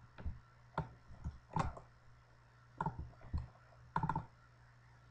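Computer mouse clicking: about eight short separate clicks at irregular spacing, some in quick pairs, over a faint low steady hum.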